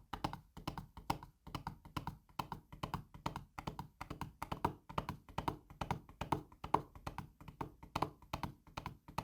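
A matchbox tapped against a surface in a galloping rhythm to imitate a horse's hooves: a Foley horse-gallop effect. The short knocks come in quick groups, about two groups a second.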